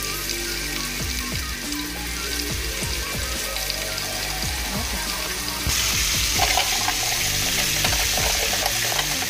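Sliced bitter melon sizzling in oil in a frying pan, the sizzle growing louder about six seconds in. Background music plays underneath.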